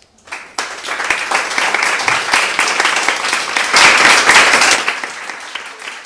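Audience applauding at the close of a talk. The clapping starts about half a second in, is loudest around four seconds in, then thins out.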